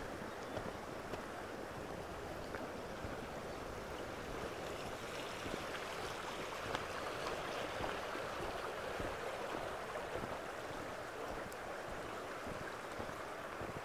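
A small stream running over a stony bed: a steady rushing of water that grows a little louder in the middle, with faint footsteps on a gravel path.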